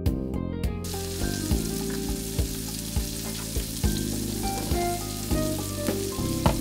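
Mushrooms sautéing in Cajun butter sauce in a cast iron skillet, a steady frying sizzle that comes in about a second in.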